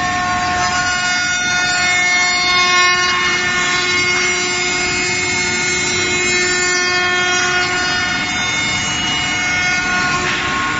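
Five-axis CNC wood router running: its spindle gives a steady high-pitched whine made of several held tones over a constant mechanical noise while the head works around wooden furniture parts.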